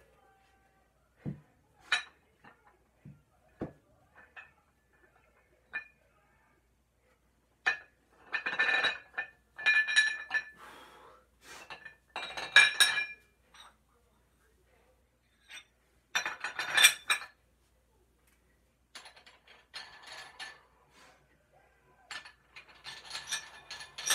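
Metal clinking and rattling in irregular bursts, with a few short clicks first and longer rattling clusters later.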